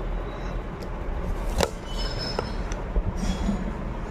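Handling of a sewing machine's parts as a compartment is opened. There is a sharp click about a second and a half in, a light clink, and a soft knock near three seconds, over a steady low hum.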